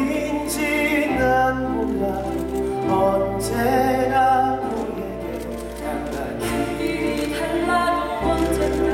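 A song from a stage musical: voices singing long, held notes over an instrumental accompaniment, with deep sustained bass notes that change every few seconds.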